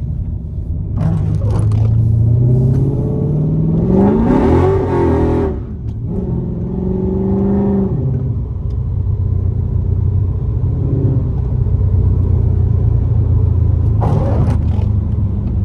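Dodge Charger's swapped-in 392 (6.4-litre) HEMI V8 accelerating: the engine note climbs in pitch for about four seconds, dips briefly at a gear change, climbs again, then settles into a steady low drone.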